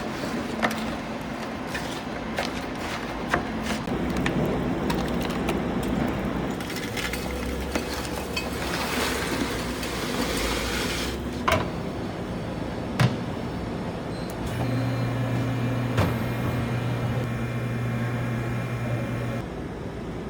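Work and machinery sounds: scattered sharp clicks and knocks over a noisy mechanical background. From about two-thirds of the way in, a machine runs with a steady low hum that cuts off near the end.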